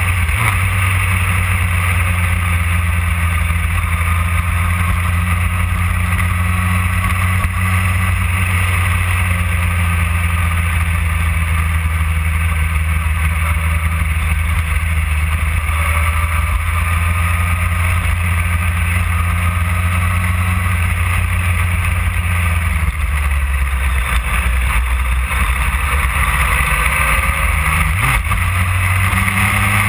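Motorcycle engine running steadily at road speed, heard from the riding bike, under a steady rush of wind and road noise. The engine note drops lower about three-quarters of the way through and climbs back near the end.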